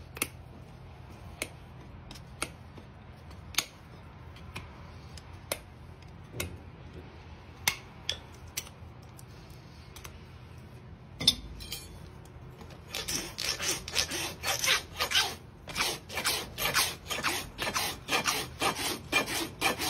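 Hoof knife paring a horse's hoof sole, giving scattered single sharp clicks as it cuts through hard horn. About two-thirds of the way in, a farrier's rasp takes over, filing the hoof in quick, even, scraping strokes that are louder than the knife.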